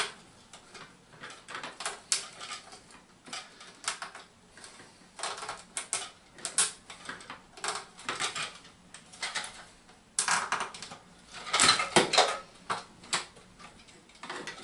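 Irregular clicks, taps and clatter of a new plastic Fluidmaster toilet flush valve and its O-ring being handled and fitted together. The sounds come in scattered bunches, with a denser, louder run of clicks after about ten seconds.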